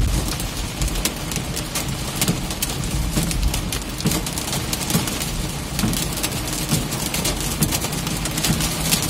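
Hail and heavy rain pelting the roof and windshield of a van, heard from inside the cabin: a dense, irregular patter of sharp taps over a steady hiss, with a low hum from the van underneath.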